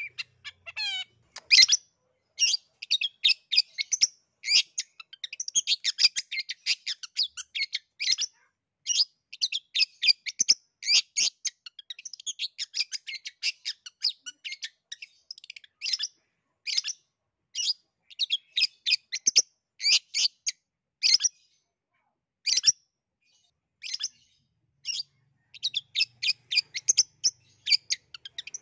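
Caged long-tailed shrike (cendet) singing a fast, varied chatter of short high notes, with a few brief pauses.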